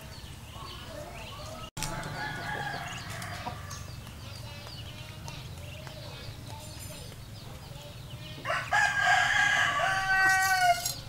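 A rooster crowing once, long and loud, in the last few seconds, the call ending on a held steady pitch. Fainter chicken clucks and bird calls come before it.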